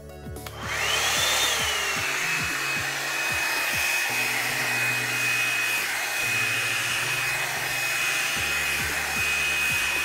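Revlon One-Step hair dryer brush switching on about half a second in, its motor whine rising briefly and then settling to a steady high pitch over the rush of air, run on the low heat setting.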